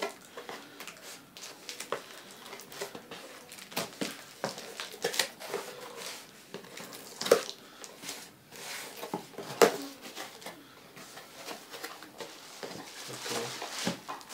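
Handling and opening a cardboard speaker box: irregular rustling and crinkling of packaging with small clicks and taps, and two louder knocks about seven and nine and a half seconds in.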